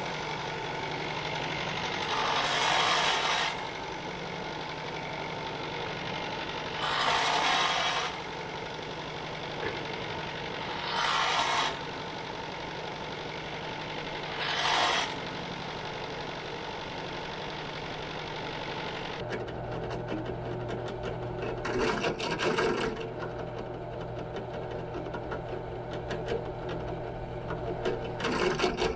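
Bench belt-and-disc sander running steadily, growing louder four times for about a second as small aluminium brackets are pressed against it to smooth their cut edges. About two-thirds of the way through the sound changes abruptly to a drill press running, with a few louder moments as the bit cuts into an aluminium bracket.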